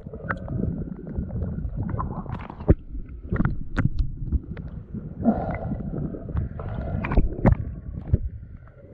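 Underwater sound: a steady low rumble of water moving round the camera, broken by scattered sharp clicks and knocks from diving gear and the mesh keep net being handled.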